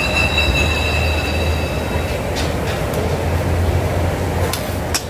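Gas burners running with a steady low roar under small metal pots. A high thin squeal lasts about the first two seconds, and a few sharp clinks, a stirring spoon against the pot, come in the second half.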